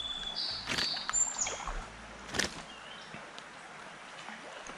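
Thin, high-pitched bird calls, a few short whistles in the first second and a half and one more near the middle, over steady outdoor hiss. Two short sharp clicks come about a second apart.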